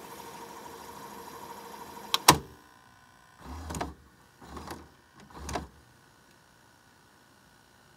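VCR rewinding a tape with a steady whine, which stops with a loud clunk a little over two seconds in. Three short mechanical whirring clunks from the tape mechanism follow about a second apart.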